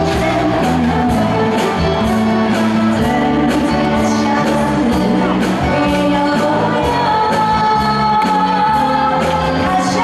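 Female vocalist singing a Mandarin pop song into a microphone, with live band accompaniment amplified through the stage PA; she holds long notes over a steady bass line.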